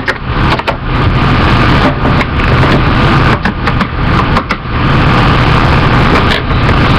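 Loud steady rumbling noise with scattered clicks and knocks.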